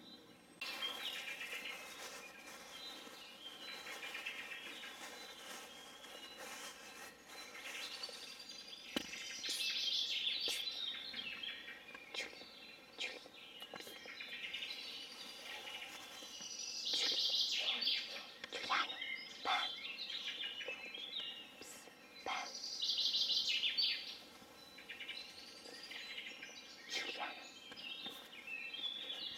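Birds chirping and singing in bursts every few seconds, with a few sharp clicks.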